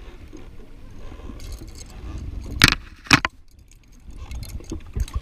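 Fishing tackle being handled on a jet ski: two sharp knocks about half a second apart near the middle, with a few lighter clicks and rattles over a low wind-and-water rumble.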